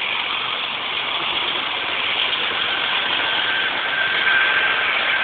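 Steady road-traffic noise from idling buses and vehicles on the highway below: an even hiss, with a faint high steady whine that comes in about halfway through.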